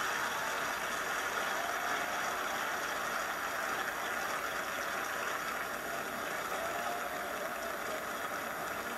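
Audience applauding steadily, heard through a television's speakers.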